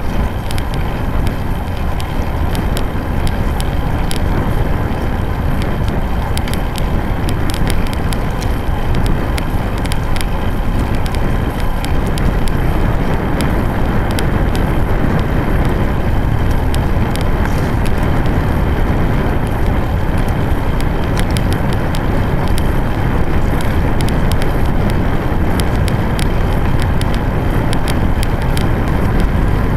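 Wind buffeting the microphone of a camera mounted on a moving road bike, with the hum of the tyres on rough asphalt. Many small irregular clicks and rattles run through it.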